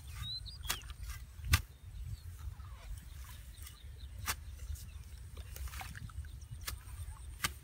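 Open-air field sound: a steady low rumble of wind on the microphone, broken by a few sharp clicks or knocks, the loudest about one and a half seconds in, with a brief bird chirp near the start.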